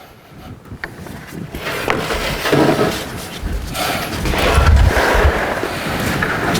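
Bottom shelf board being slid into the step beams of a steel pallet racking frame: a scraping rush that grows louder over the first few seconds, with heavy thuds a little past the middle as the board drops into place.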